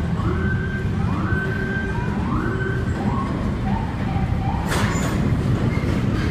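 A siren rings out in repeated rising whoops, about one a second, over a steady rail rumble. Its pitch drops lower through the second half. About three-quarters of the way in, the clatter of an approaching R46 subway train's wheels on the elevated track breaks in.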